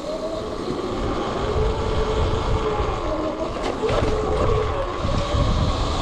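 Electric dirt bike's motor whining while riding, its pitch sliding up and down with the throttle, over a low rumble.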